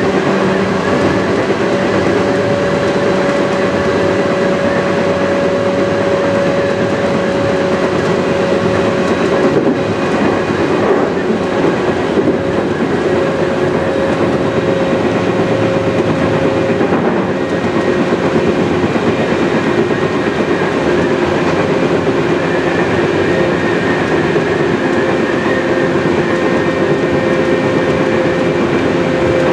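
Tokyu 8500 series electric train running at a steady speed, its traction motors and gears giving a steady two-note whine over rail and wheel rumble with clickety-clack from the track joints, heard from the leading motor car.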